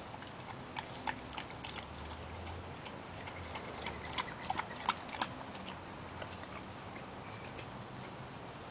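A large dog lapping water from a water-filled tire: a quick, irregular run of wet clicks and splashes, busiest in the first half and thinning out after about five seconds.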